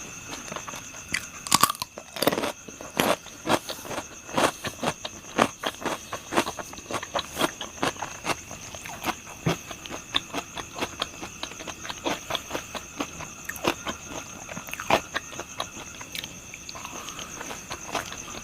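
Close-up crunchy chewing and biting of crispy deep-fried pork intestine and liver: irregular crackling crunches several times a second.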